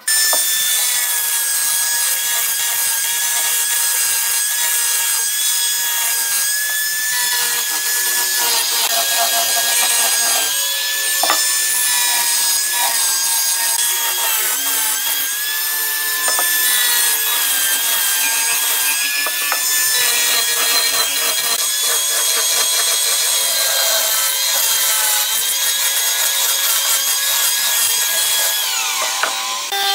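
Angle grinder fitted with a sanding drum, sanding the curved edges of a wooden table leg: a steady high motor whine over the rasp of abrasive on wood, its pitch sagging now and then as it is pressed in. The motor winds down near the end.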